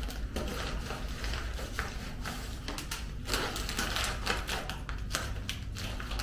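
Items being handled and rummaged through in a packed bag: rustling with irregular clicks and taps.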